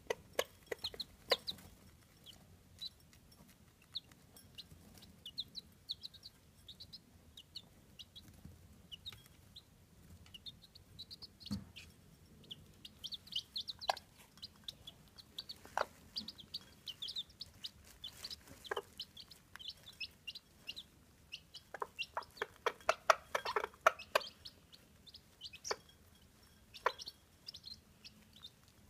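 Chabo chicks peeping in short, high chirps, with scattered sharp taps of beaks pecking at the feed bowl. The taps come thick and fast for a couple of seconds about three-quarters of the way through.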